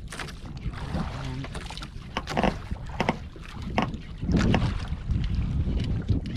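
Wind buffeting the microphone and water washing against a small outrigger boat, with several short splashes and knocks as a handline is worked from the bow.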